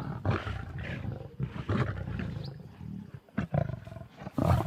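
Lions snarling and growling in short, irregular bursts as they squabble over food at a kill.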